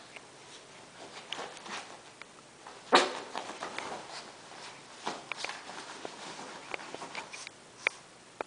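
Bedsheets rustling and scuffling as two damp Maltese dogs rub themselves dry and scramble about on the bed, in short irregular bursts with a louder scuffle about three seconds in.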